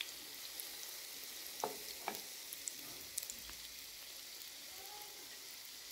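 Chicken-and-lentil shami kebabs shallow-frying in hot oil: a steady, faint sizzle, with a couple of light taps about two seconds in.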